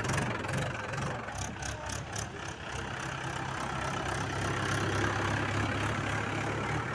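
Farm tractor's diesel engine running steadily at low speed while pulling a loaded trailer.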